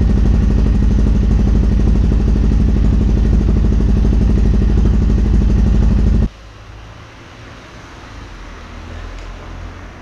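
Yamaha XT660R's single-cylinder four-stroke engine idling loud and steady through a newly fitted TRS aftermarket exhaust, run briefly so the exhaust joint heats and seals. It stops abruptly about six seconds in.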